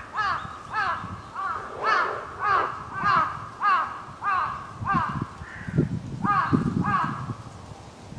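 Crows cawing in a fast, unbroken run of harsh caws, about two a second, with a low rumble underneath in the second half. The recordist takes this cawing for an earthquake-warning call.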